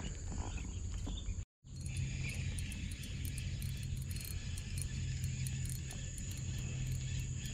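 Steady high-pitched insect chorus over a low hum, broken by a brief dropout about a second and a half in.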